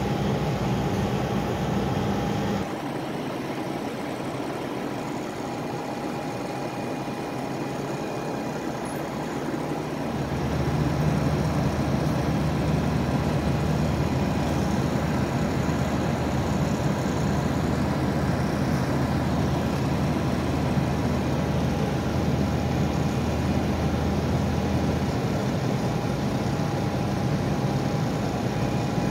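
Heavy vehicle engines idling with a steady low hum and a faint steady whine above it. The hum drops about two and a half seconds in and grows louder again about ten seconds in.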